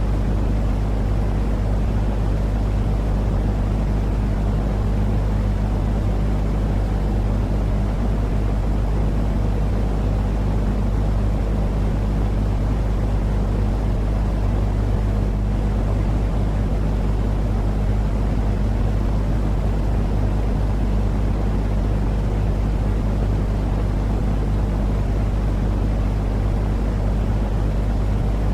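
A cat's purr mixed with steady white noise, an even low rumble with no breaks.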